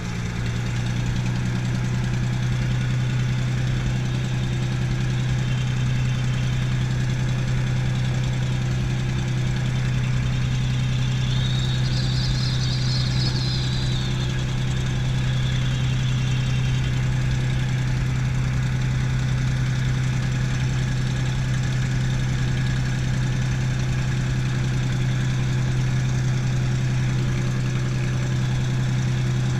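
P-51D Mustang's Packard Merlin V-12 engine running steadily at low power while taxiing, heard from inside the cockpit. A brief, faint high squeal rises and fades about halfway through.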